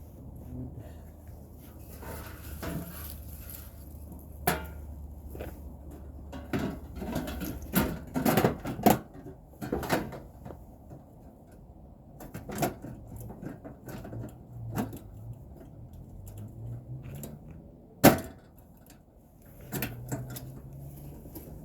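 Irregular knocks, clicks and clatter of hand work on parts of an air-conditioner outdoor unit, with one sharp loud knock near the end. A low steady hum stops about eight seconds in.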